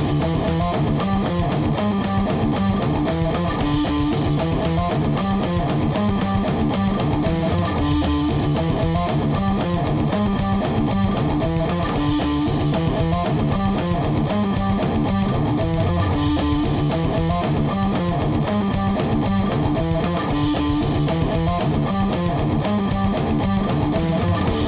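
Death/thrash metal: distorted electric guitar riffing over bass guitar and fast drums, the riff coming round about every four seconds with a crash each time.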